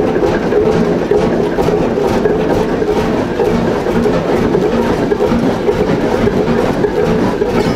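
Large vintage engine running steadily, an even mechanical drone with no change in speed.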